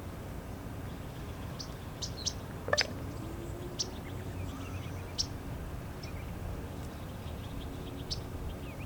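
Male common raven making sharp popping calls, about seven pops at irregular intervals, the loudest about three seconds in; the popping seems to be a territorial call. A steady low rumble runs underneath.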